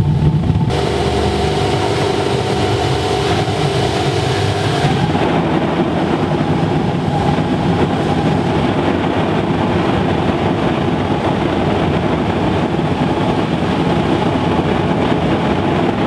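A 300 kW waste oil burner preheating on gas: the gas flame catches about a second in and then burns with a loud, steady rush. A steady whine sits over the rush for the first few seconds.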